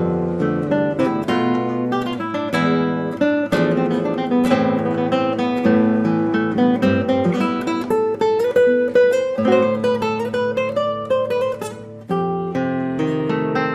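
Paulino Bernabé Especial nylon-string classical guitar being played: plucked melody notes and strummed chords, with a held, slightly wavering melody line in the middle of the passage. There is a brief drop in loudness near the end, then a fresh chord.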